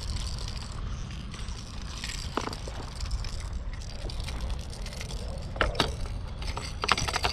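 Wind rumbling on the microphone and choppy water slapping the plastic hull of a pedal kayak under way. A few sharp clicks and knocks from gear being handled come about five and a half and seven seconds in.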